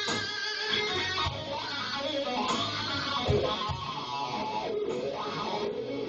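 Band playing an instrumental break, with an electric guitar lead playing bent, wavering notes over the rhythm section.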